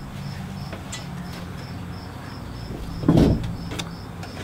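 A steady low mechanical hum under an insect's high chirp, repeating evenly about three times a second. About three seconds in comes a short thump and scrape as a person sits down on a patio chair at a glass-topped table, with a few small clicks around it.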